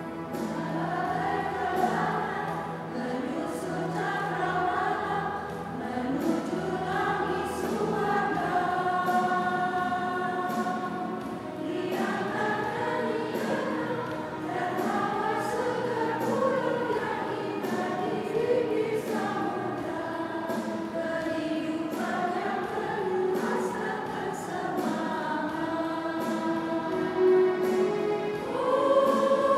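Two-part church choir singing a hymn, several voices moving together in held, gliding lines.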